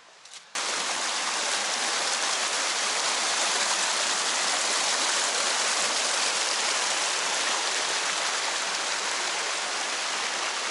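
Small mountain creek rushing and splashing over rocks, a loud, steady rush of water that starts abruptly about half a second in.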